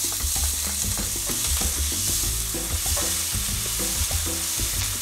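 Chopped onion sizzling in hot oil in a stainless steel skillet, with a wooden spatula stirring and scraping it around the pan in many small clicks and scrapes.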